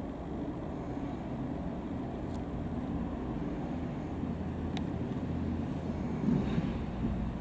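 Electric locomotive rolling slowly toward the listener: a steady low rumble and hum of its motors and wheels, growing a little louder, with one sharp click about five seconds in.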